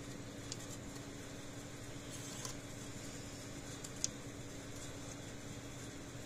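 Steady low electrical hum with three faint, irregularly spaced light clicks of small parts being handled, the loudest a little past the middle.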